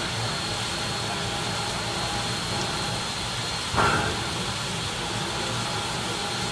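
Southern Pacific 4449, a GS-4 4-8-4 steam locomotive, hissing steadily as steam escapes around its running gear while it stands. A sudden louder burst comes just under four seconds in and dies away quickly.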